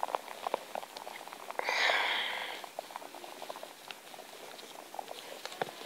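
Faint scattered small clicks and ticks, with one breathy hiss about two seconds in that lasts about a second, a breath close to the microphone.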